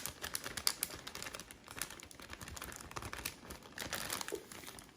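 Plastic bag holding raw chicken and spices crinkling and crackling with many small irregular clicks as it is pressed and sealed shut.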